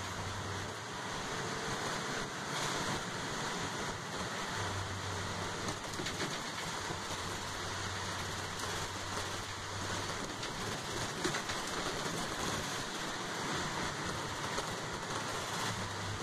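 Inside a moving transit bus: steady road and tyre noise on wet pavement, with the engine's low hum coming and going.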